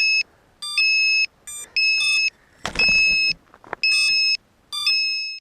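FPV drone electronic buzzer beeping repeatedly. Each beep is a shrill steady tone lasting up to about half a second, some opening with a short lower chirp, coming roughly once a second. A brief rustle of handling comes between beeps about two and a half seconds in.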